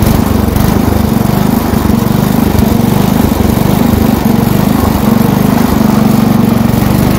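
Garden tractor's gasoline engine running steadily, just started.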